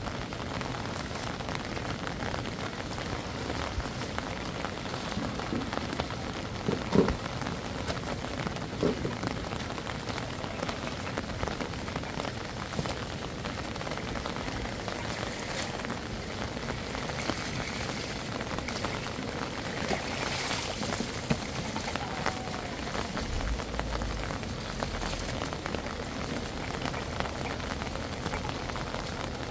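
Steady pattering of falling water, like rain on a hard surface, with a brief louder sound about seven seconds in.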